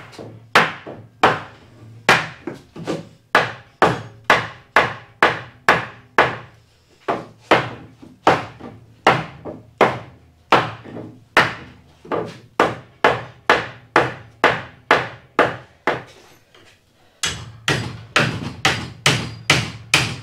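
Hammer blows on the joints of a wooden gate frame, about two a second, with a short pause about 16 seconds in, then quicker blows.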